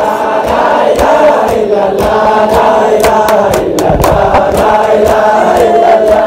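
Men chanting an Islamic zikr over a microphone, a sustained, slowly wavering chant, with sharp percussive strikes through it.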